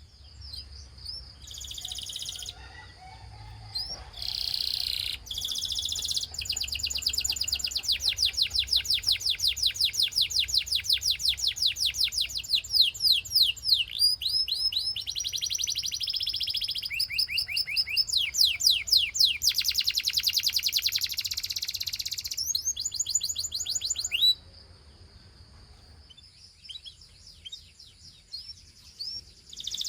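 Gloster canary singing a long song of rapid trills, fast repeated sweeping notes with buzzy rolls between them. About 24 seconds in the song stops, leaving only a few scattered chirps.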